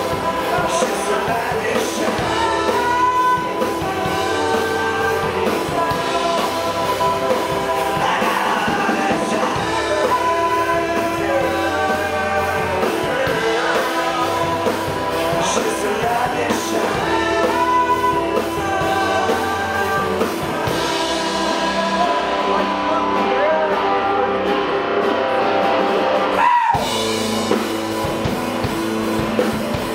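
Live rock band playing a song, with a voice singing over saxophone, drum kit, keyboard and bass, and a brief falling swoop near the end.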